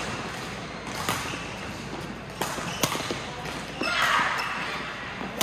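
Badminton rally: sharp cracks of rackets hitting the shuttlecock every second or so, with footfalls on the court floor and a short noisy burst about four seconds in, echoing in a large sports hall.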